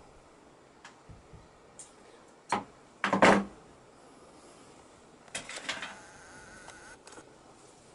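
A few sharp knocks and clicks from handling on a work surface, the loudest about three seconds in and a quick cluster of clicks near the middle.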